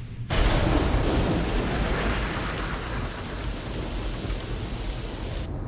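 Heavy rain pouring steadily, opening suddenly with a loud thunderclap and low rumble; the hiss of the rain drops away shortly before the end.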